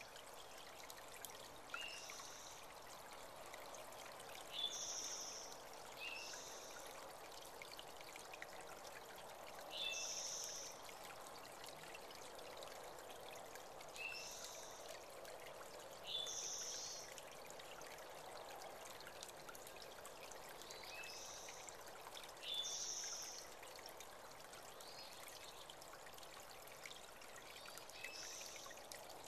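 Small creek trickling and pouring steadily, with a bird repeating a short, high two-part call every few seconds.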